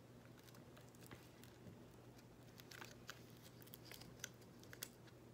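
Faint crinkling and small ticks of a plastic powder drink-mix sachet being handled and opened by hand, a few scattered ticks over a low steady hum.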